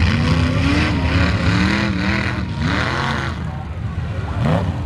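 Engines of off-road tough trucks racing over a dirt obstacle course, revving and running with pitch rising and falling, and a louder surge about three seconds in.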